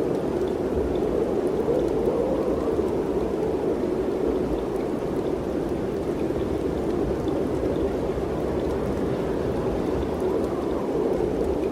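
Mountain wind blowing steadily, a low rushing noise that swells a little about a second in and again near the end.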